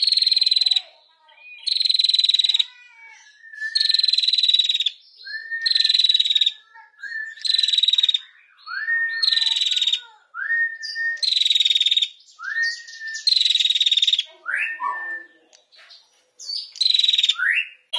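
Female prenjak, a small warbler, calling in rapid buzzing trills (ngetir), about a second each and repeated every one and a half to two seconds, most followed by a short rising note.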